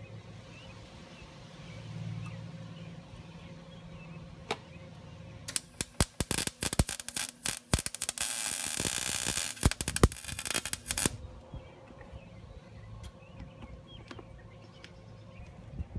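Stick-welding arc on a scooter's cracked steel muffler pipe: a run of short crackling sputters as the rod is struck, then a steady crackling arc for about three seconds that cuts off suddenly.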